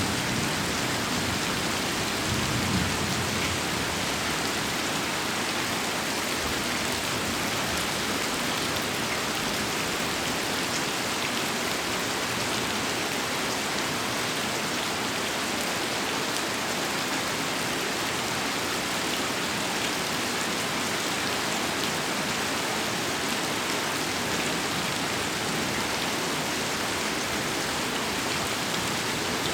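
Heavy rain falling steadily. A low thunder rumble dies away in the first few seconds.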